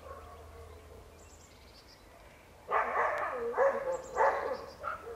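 A dog whining faintly, then barking repeatedly in a run of short barks from about halfway through.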